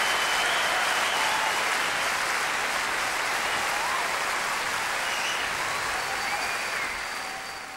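Audience applauding, a dense steady clatter with a few faint whistles, fading out over the last couple of seconds.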